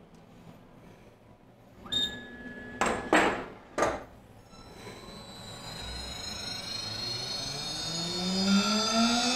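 CNC router starting its program: a short beep with a click, a few sharp clicks and brief bursts of noise, then the spindle motor spins up with a whine of several tones that rises steadily in pitch and grows louder over the last few seconds.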